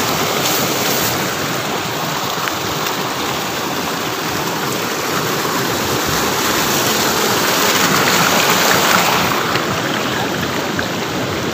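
Waterfall and its stream rushing steadily, an even, continuous noise of falling water.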